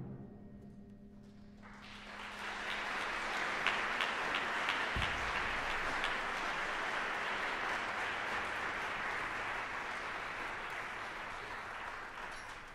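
The last chord of a concert band dies away in the hall's reverberation, then an audience applauds steadily, tapering off near the end.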